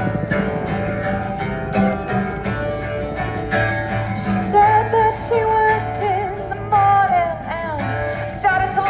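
Acoustic guitar music: steady strummed chords, joined about halfway through by a lead melody with pronounced bends and slides.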